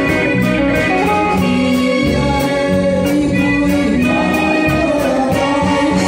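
A man singing into a handheld microphone over a live band with drums and keyboard, amplified through a PA, with a steady beat.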